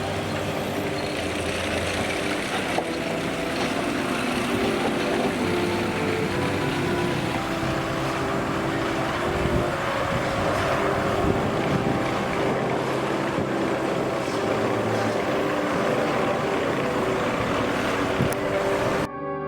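Harvesting machinery's engine running steadily in the field, its tone shifting slightly in pitch now and then. Near the end it cuts off abruptly and brass music begins.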